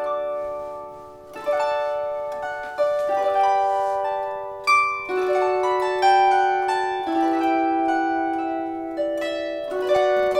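Gusli, the Russian plucked psaltery, played solo without singing. Plucked chords and single notes ring out and fade, and a fresh one is struck every second or two.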